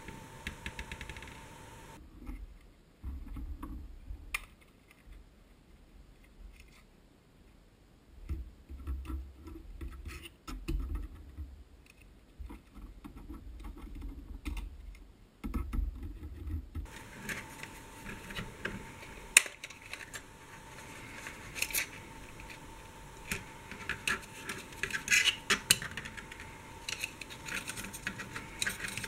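Plastic sporks handled on a table, making scattered clicks, taps and scrapes. The clicks are sparse and quiet through the middle and come thicker and louder in the last dozen seconds, over a faint steady hum.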